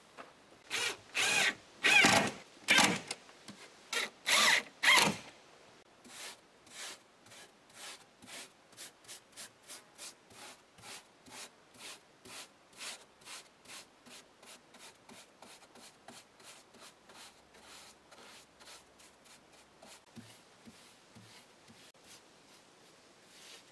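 Paintbrush rubbing a dark finish onto a wooden cabinet: several loud scraping strokes in the first five seconds, then a steady run of lighter brush strokes about two a second that fade away.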